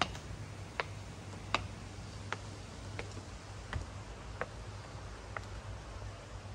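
Footsteps clicking on a hard floor at a walking pace, about one step every three-quarters of a second, stopping about five seconds in, over a steady low hum.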